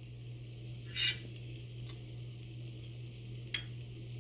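Curry leaves sizzling faintly in hot oil in a pan, with a brief louder crackle about a second in and a light click near the end, over a steady low hum.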